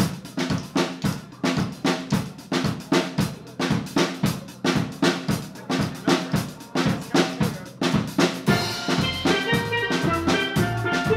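A drum kit plays an intro groove of quick, even strokes. About eight and a half seconds in, steel pans and a bass guitar come in with the tune.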